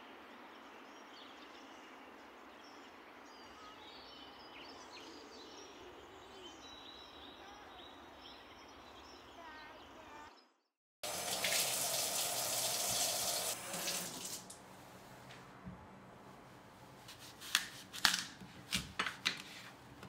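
Soft outdoor ambience with faint high chirps for about ten seconds; after a sudden cut, a kitchen tap runs loudly for about three seconds, then several sharp knocks and clicks of kitchen work near the end.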